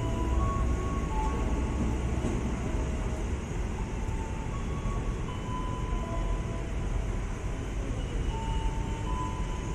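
Ex-JR 205 series electric commuter train pulling away along the platform: a steady rail rumble with several thin, steady whines at different pitches coming and going.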